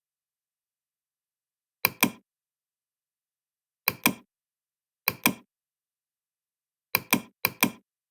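Sharp mechanical clicks in pairs, each a quick double knock, five pairs at uneven spacing with dead silence between them.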